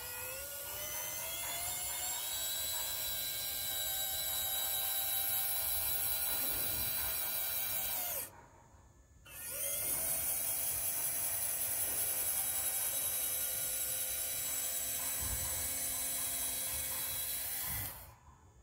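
Small electric motor of a homemade RC dump truck's tipping mechanism whining as it raises the bed, its pitch rising as it spins up, then cutting off suddenly about eight seconds in. After a second's pause it starts again to lower the bed and stops just before the end.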